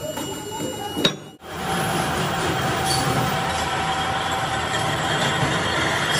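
Metal-working machine shop noise: a steady mechanical rumble and clatter of running lathes with a faint steady whine. It breaks off briefly about a second in and then runs on evenly.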